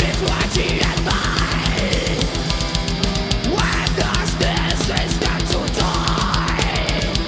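Groove metal band playing live: distorted guitars and bass over a rapid, steady kick-drum beat, with a woman's vocals on top.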